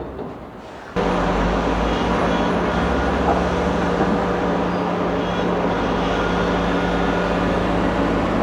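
Heavy diesel engine running steadily, with a held low hum; it cuts in suddenly about a second in.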